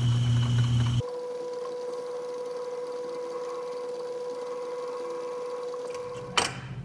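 1936 Atlas 12-inch metal lathe running under its electric motor as a 1/4 inch drill is started into the part, a steady machine hum. About a second in, the sound switches abruptly to a thinner, higher-pitched steady hum, and a sharp click comes near the end.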